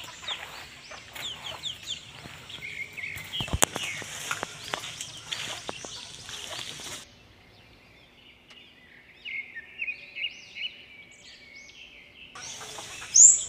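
Village chickens calling from the trees: clucks and many short, high, falling calls. About halfway through the sound thins out suddenly to sparser chirps, with a sharp click a few seconds in.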